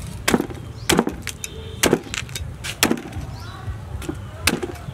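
Heavy cleaver chopping through a roasted chicken onto a wooden chopping board: about five hard chops roughly a second apart, with lighter knocks in between.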